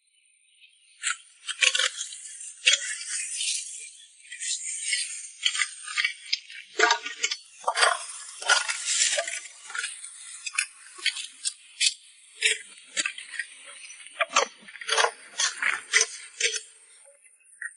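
Irregular sharp clicks, clinks and rattles, coming in quick clusters, one after another.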